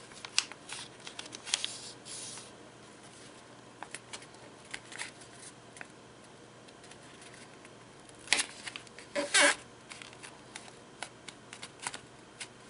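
A sheet of origami paper being folded and creased by hand: scattered crisp rustles and crackles, with two louder rustles about eight and nine seconds in.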